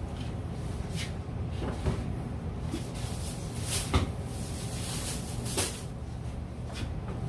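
Small cardboard reel boxes being handled and set down on a display counter: a few scattered knocks and scuffs, the sharpest about four seconds in, over a steady low hum.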